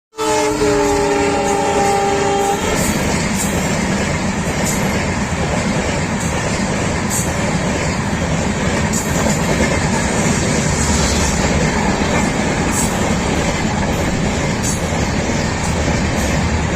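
Train horn sounding one steady chord for about two and a half seconds. Then the loud, steady rumble of the train running across a bridge, with regular clicks of wheels over rail joints.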